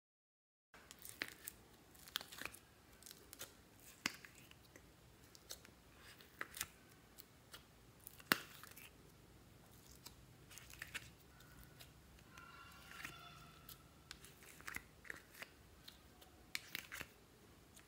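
Soft slime being pressed and pulled by hand, giving faint, irregular sticky clicks and crackles.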